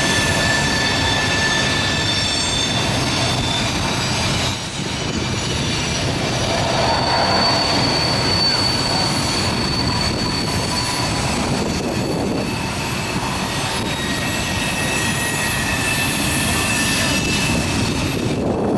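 Loaded freight cars of a trash train rolling past on a tight curve, a steady rumble of wheels on rail with the wheels squealing in several high, steady tones that change pitch now and then.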